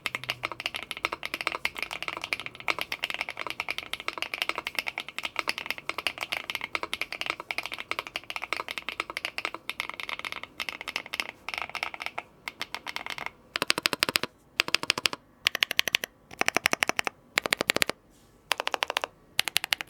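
Typing test on a Furycube E68 aluminium gasket-mount mechanical keyboard with HMX Grape linear switches: a dense, fast run of crisp key clacks, then, about two-thirds through, short bursts of rapid keystrokes with brief pauses between them.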